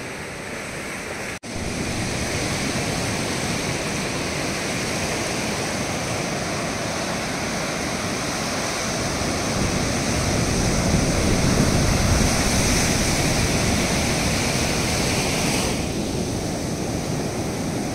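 Ocean surf breaking and washing up the sand, a steady rushing wash that swells louder about ten seconds in. There is a split-second dropout about a second and a half in.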